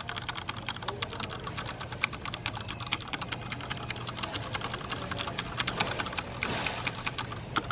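Fast typing on a Corsair mechanical keyboard with Cherry MX Speed Silver linear switches: a dense, continuous run of quick key clicks.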